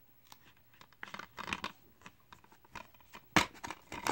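Plastic DVD cases being handled: irregular rustling, scraping and light clicks, with a sharp plastic click about three and a half seconds in.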